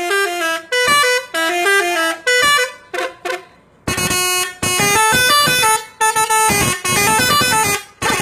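SCH-721 melody horn playing tunes of quick stepped notes in short phrases, with a brief break about three seconds in.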